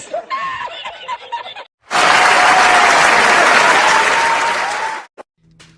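Applause from a crowd, loud and dense for about three seconds, then cut off abruptly, after a brief stretch of voice at the start.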